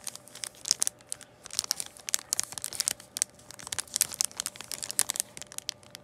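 Clear plastic packaging of a foam sticker pack crinkling as it is gripped and shifted in the hands: irregular sharp crackles in bunches.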